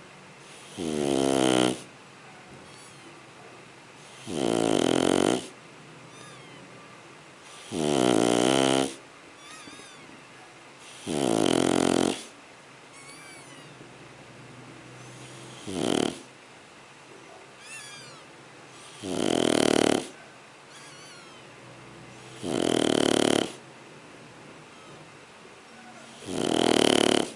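Shar Pei puppy snoring in its sleep: eight snores, one every three to four seconds and each about a second long, with one shorter snore midway.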